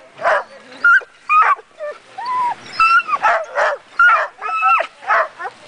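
Harnessed sled-team huskies barking, yipping and whining in a quick, continuous string of short calls, some with a rising and falling whine.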